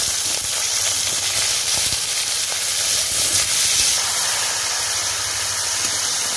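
Crab pieces frying in hot oil in an iron kadai, a loud steady sizzle.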